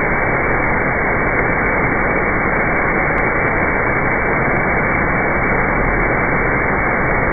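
Floor-mounted high-pressure underbody spray nozzles of a touchless automatic car wash jetting water upward, a steady even hiss of spray.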